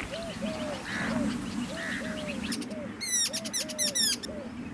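Several birds calling at once: a steady run of short, repeated mid-pitched notes, several a second, over lower calls and scattered high chirps. About halfway through comes a burst of rapid, sharp, falling chirps that lasts under two seconds.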